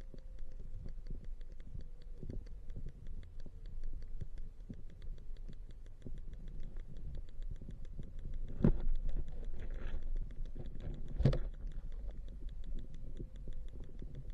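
Underwater ambience picked up by a submerged camera: a dense, fine crackle of tiny clicks over a low rumble, with a faint steady hum. Two louder knocks come about nine and eleven seconds in.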